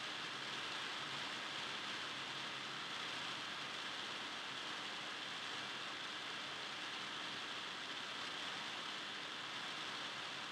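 Steady, even hiss with no ball bounces, shoe squeaks or voices standing out.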